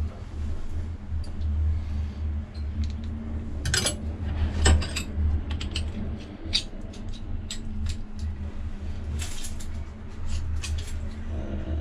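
Metal hand tools clinking and a set of hex keys jangling as they are handled and sorted, in a run of short irregular clinks over a steady low hum.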